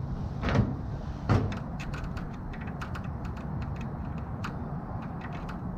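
Scattered light clicks and scrapes of a thin metal pick working in the seam of a 1955 Snap-on KR61 sheet-steel tool chest, with two louder knocks about half a second and just over a second in, over a steady low background hum.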